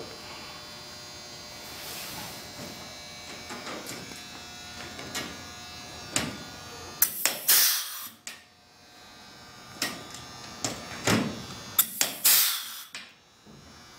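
Power rivet gun setting pop rivets in a plastic race-car body panel: a steady buzz, then a few short sharp bursts as rivets are pulled tight and their stems snap off, about halfway through and twice more near the end.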